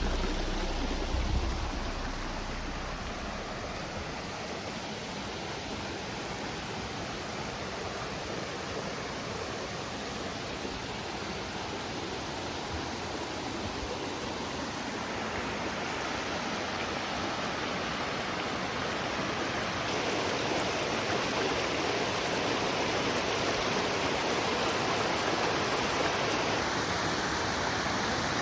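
Steady rush of flowing water, growing louder in two steps after the middle.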